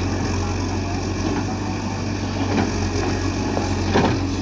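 Hydraulic excavator's diesel engine running steadily, with a few sharp knocks, the loudest about four seconds in.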